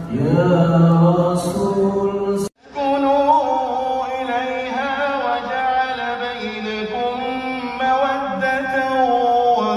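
Vocal music with long, held, slowly wavering notes. The sound breaks off abruptly for a moment about two and a half seconds in, then the singing carries on.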